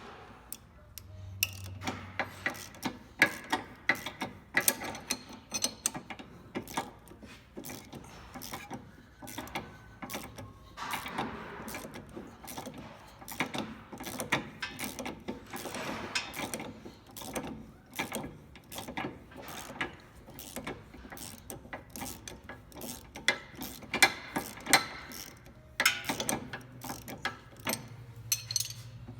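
Hand socket ratchet clicking in quick runs as a fastener is turned, with short pauses between runs.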